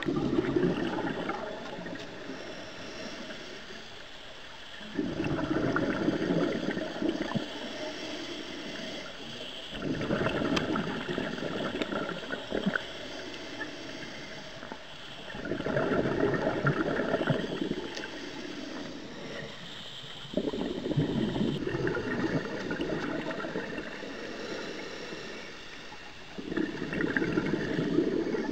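Exhaled bubbles from a scuba diver's regulator bubbling in six bursts, each two to three seconds long and about five seconds apart, to the rhythm of the diver's breathing; it is quieter between the breaths.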